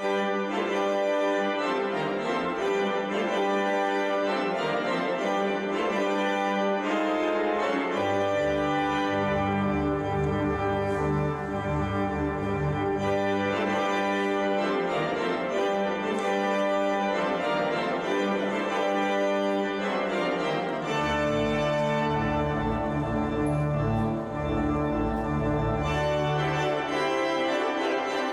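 Church organ playing a closing voluntary after the dismissal: full sustained chords that begin suddenly. Deep pedal bass notes come in twice, for about five seconds each.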